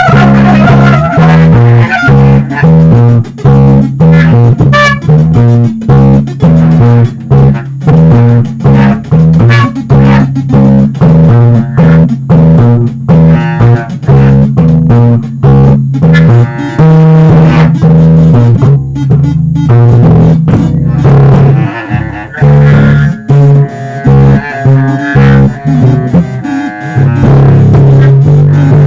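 Music: a low electric bass line played in short repeated notes, with plucked guitar above it.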